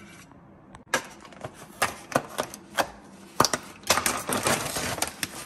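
Sharp clicks and taps of a kitchen knife working into the plastic film over a tray of raw chicken wings, then the plastic crinkling as it is torn and pulled open near the end.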